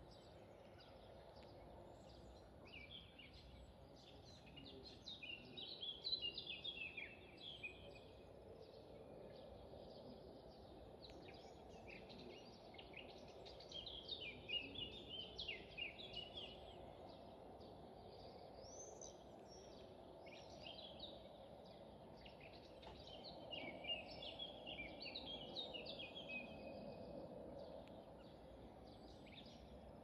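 A songbird singing faintly, with three song phrases of a few seconds each, roughly ten seconds apart, and scattered single chirps between them. A faint steady low hum lies underneath.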